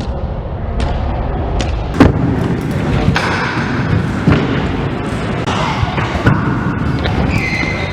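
Stunt scooter wheels rolling on skatepark ramps, with hard thuds of scooters landing and striking the ramp; the loudest thud comes about two seconds in, with further knocks a little past the middle and later.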